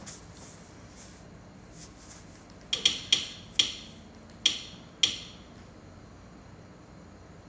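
Six sharp knocks in an uneven run, starting a little before the middle and over within about two and a half seconds.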